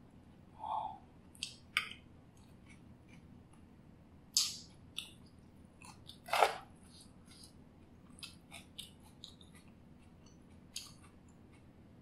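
Close-miked eating sounds: soft chewing and mouth clicks over mouthfuls of roasted pumpkin and rice. Scattered sharp clicks and scrapes come from a metal spoon working in the baking tray, the loudest about six seconds in.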